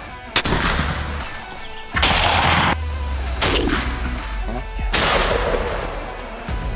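Three turkey-hunting shotgun blasts, each trailing off in a rolling echo, over a low, steady music bass line.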